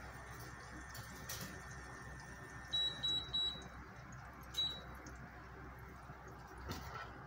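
Butter sizzling as it melts in a frying pan, a steady soft hiss. About three seconds in come three quick high electronic beeps, then one more a second later.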